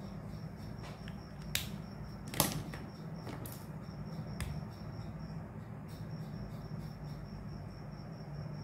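Steady background of a low hum and a faint high pulsing chirr, broken by two sharp clicks, the louder one about two and a half seconds in.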